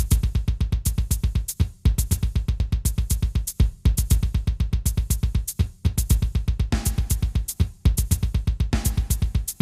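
Electronic music built on a fast, pounding bass-drum beat that breaks off briefly about every two seconds, with a hiss-like layer joining it for short stretches near the end.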